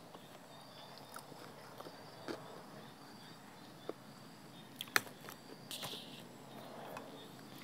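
Faint chewing as a person eats a mouthful of rice with chili paste and fried pork rinds, with a few sharp clicks of a metal spoon against a ceramic bowl, the loudest about five seconds in.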